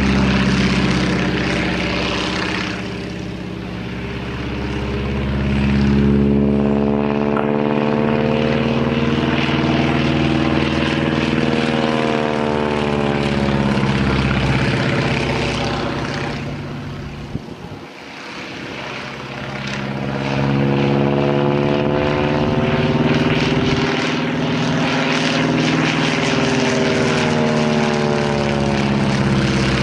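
Boeing Stearman biplane's radial engine and propeller running through an aerobatic display, the drone gliding up and down in pitch and loudness as the plane manoeuvres and passes. It fades briefly a few seconds in and more deeply a little past halfway, then builds again.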